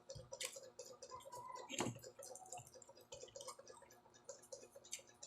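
Faint eating sounds during a meal: scattered soft clicks and light clinks, with two sharper clicks about half a second in and just before two seconds.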